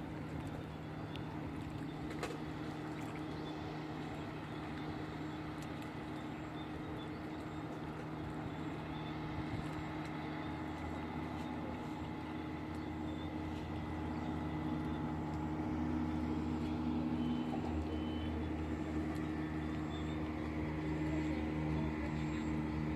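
An engine running steadily with a low drone, growing somewhat louder about two-thirds of the way through.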